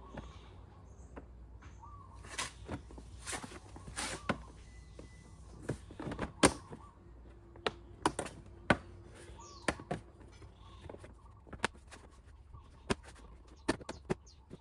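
Plastic scooter body panels knocking and clicking as the inner leg-shield cover is pressed and worked into place: a run of irregular sharp clicks and taps, the loudest about six seconds in.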